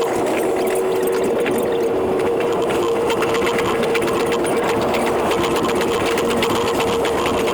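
E721 series electric train's running sound played back ten times faster: the motor and wheel-on-rail noise squeezed into a steady, rapid, sewing-machine-like clatter over a held buzzing tone.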